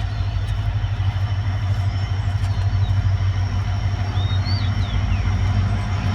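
EMD 16-cylinder two-stroke diesel engine of a WDP-4D locomotive running steadily, a low engine sound with a slight pulsing beat.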